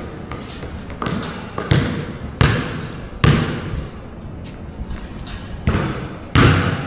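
Basketball being dribbled on a hard court, a run of thuds about two-thirds of a second apart, each echoing in a large hall under a metal roof. After a pause come two more thuds near the end, the last one the loudest, as the ball is shot at the hoop.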